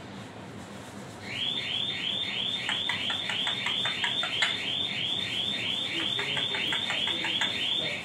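Alexandrine parakeet giving a fast run of shrill, evenly repeated calls, about four a second, starting about a second in.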